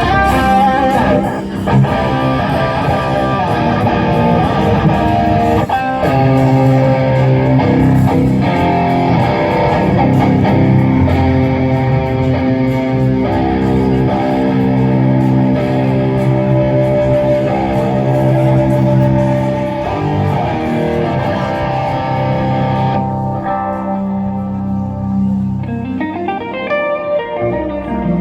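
Live rock band playing a loud, heavy electric-guitar riff over bass in long sustained chords. A few seconds before the end the heavy playing falls away to a lighter line of separate guitar notes.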